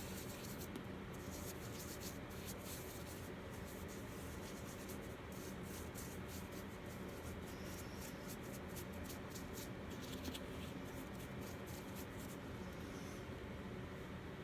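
Soft, scratchy brushing as matte primer is worked over a vinyl doll part: many quick light strokes over a faint steady hum.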